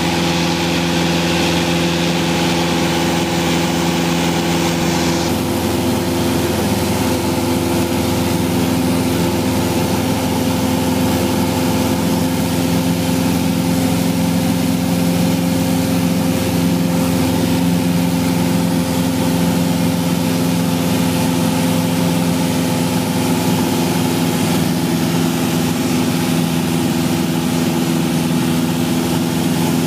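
Light aircraft's engine and propeller droning steadily in flight, heard from inside the cabin. A higher hiss over it drops away about five seconds in.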